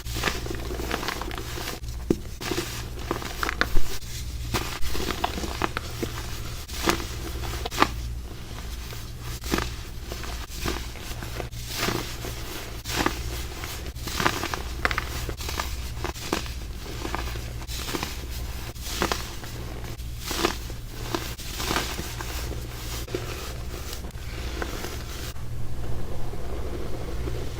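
Dry baking soda crumble crunching and crumbling: a run of irregular crisp crunches over a steady low hum. Near the end the crunches give way to a duller, steady rumble.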